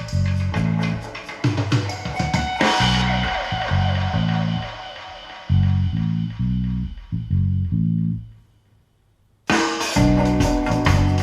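Band music with bass guitar, guitar and drums played back through hi-fi loudspeakers and picked up in the room. A cymbal crash comes about two and a half seconds in; near the end the music drops almost to silence for about a second, then starts again abruptly.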